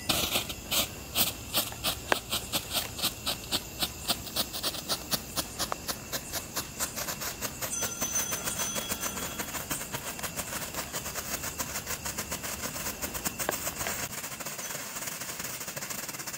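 'Photo flash' strobe firework burning on the ground: it hisses, with sharp pops in a steady rhythm, about three a second at first. The pops quicken and merge into a continuous crackling hiss that grows fainter near the end.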